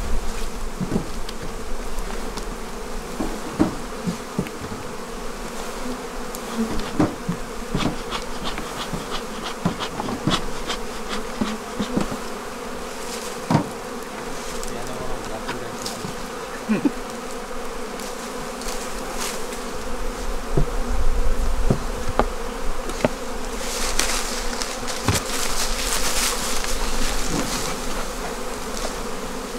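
Honeybees buzzing in a steady drone around an opened hive, with scattered knocks and taps as frames are lifted and brushed against the hive box. A burst of brisker knocking and hissing comes about 24 to 27 seconds in.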